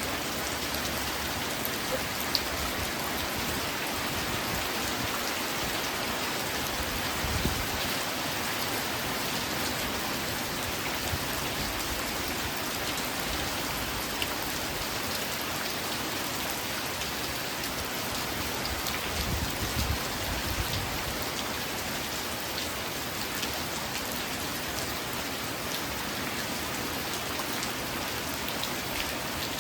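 Steady rain falling: an even hiss with scattered sharper drop ticks. Brief low rumbles swell up about a quarter of the way in and again about two-thirds in.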